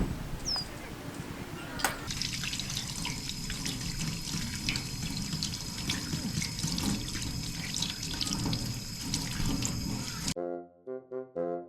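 Running water splashing for about eight seconds, starting with a click about two seconds in. It cuts off abruptly near the end, where background music with brass notes takes over.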